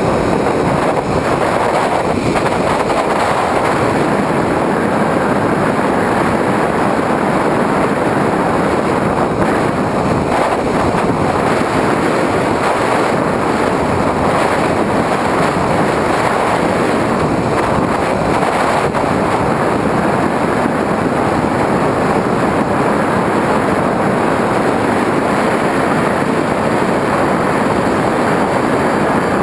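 Onboard sound of a Skywalker FPV model plane in level flight: a steady, unbroken rush of airflow and propeller noise picked up by the GoPro Hero2 on board.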